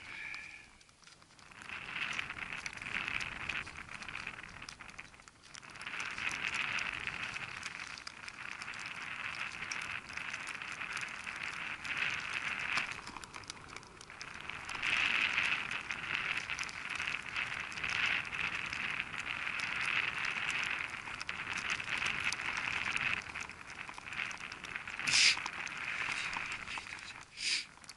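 Close, steady crackling and rustling of a climber's jacket fabric and snow brushing against a body-worn camera, swelling and easing in patches, with two sharp clicks near the end.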